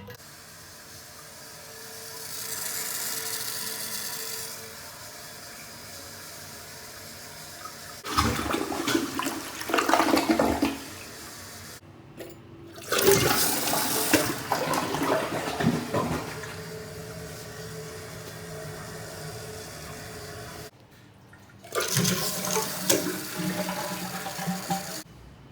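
Toilet flushing, water rushing, in several separate loud bursts with abrupt breaks between them.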